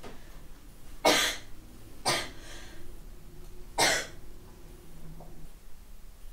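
A person coughing three times: short, harsh coughs about a second in, two seconds in and near four seconds.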